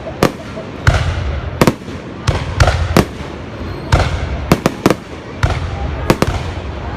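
Fireworks going off: a dozen or so sharp bangs at uneven intervals, some in quick clusters of two or three, over a steady low rumble.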